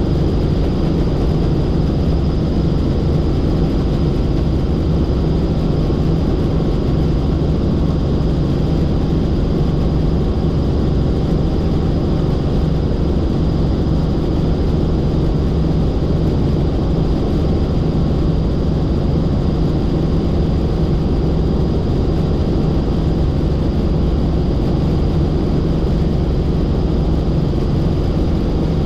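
Helicopter in steady flight: constant, loud rotor and engine noise with a thin high whine held at one pitch throughout.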